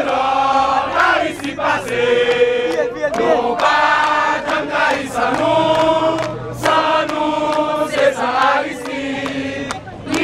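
A crowd of demonstrators chanting a sung slogan in unison, many voices holding notes together in short repeated phrases with brief breaks between them.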